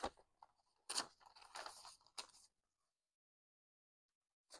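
Paper banknotes rustling and crinkling as a stack of bills is picked up and handled, in a few short bursts over the first couple of seconds.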